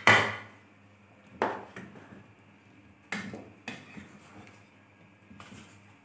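Cookware knocks and clinks as a wooden spoon stirs curry in a steel pot and the pot's glass lid is handled. There are about four sharp knocks, each ringing briefly, the loudest right at the start, with a few faint taps after.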